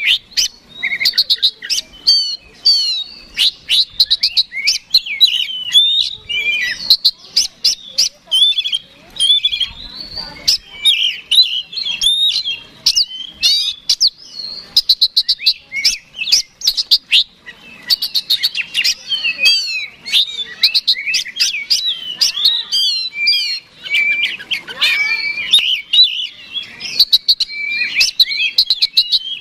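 Oriental magpie-robin (kacer) in full, nearly unbroken song: a long, varied run of sliding whistles, fast trills and sharp clicking notes with only short pauses. It is the loud, persistent fighting-mood song kept to provoke other magpie-robins into singing.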